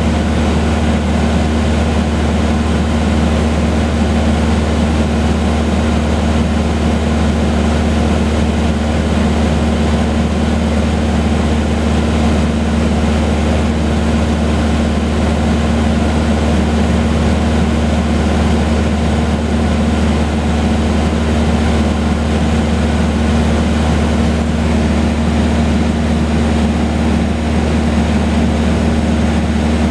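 Cessna 150H's Continental O-200 four-cylinder engine and propeller droning steadily in flight, heard from inside the small cabin.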